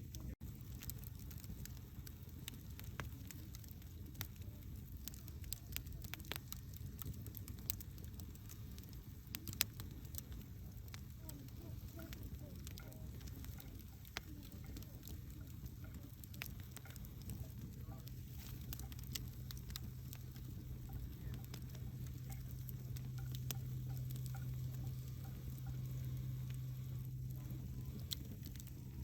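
Wood fire burning: irregular crackles and sharp pops over a low, steady rumble, with one louder pop about ten seconds in.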